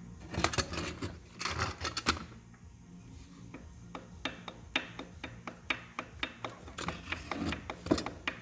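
A run of sharp metallic clicks and taps from hand work on a partly dismantled engine. They come in a cluster at first, then as lighter, fairly regular clicks, about two or three a second.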